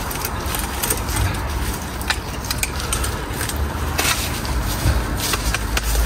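Crackling and rustling of plant stems and brush being cleared from a garden bed, with irregular sharp snaps and a low rumble underneath.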